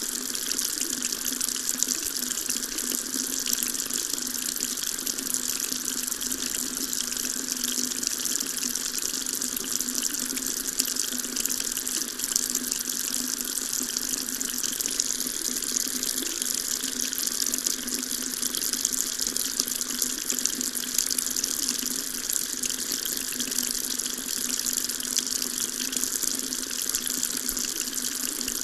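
Water tap running steadily, a constant stream splashing into a sink with an even, hissing rush.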